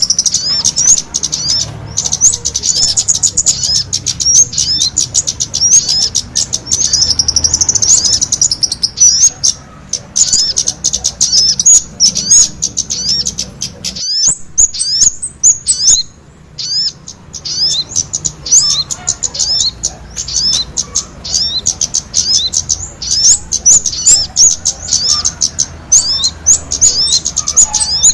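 Rapid, high-pitched chirping and twittering of small birds: a bird-trapping lure recording of sogon calls combined with kemade calls. The chirps come thick and fast, with a short lull about halfway.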